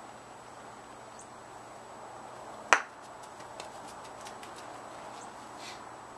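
Croquet mallet striking a ball: one sharp crack a little under three seconds in, followed by a few faint ticks.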